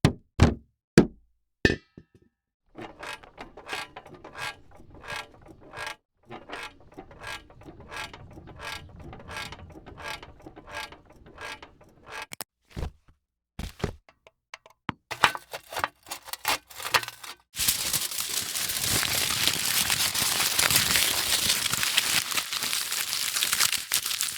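A string of foley effects. It opens with a few sharp knocks, then runs into a long series of evenly spaced mechanical ratchet-like clicks, about two a second, which turn faster before a dense, continuous crackling rustle takes over in the last several seconds.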